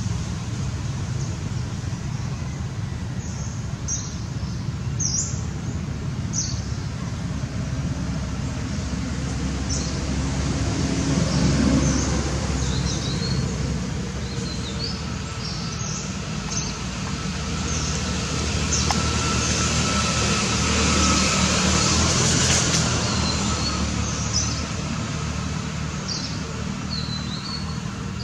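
Outdoor background: a steady low rumble with small birds chirping now and then in short, high notes.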